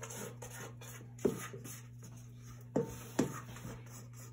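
A spatula scraping meringue out of an upturned stainless steel KitchenAid mixer bowl, knocking sharply against the bowl three times: once about a second in, then twice in quick succession near the end.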